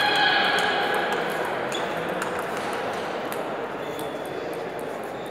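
Table tennis hall between points: scattered sharp clicks of celluloid-type ping-pong balls over a steady, echoing hall din. A short tonal squeak or call sounds right at the start.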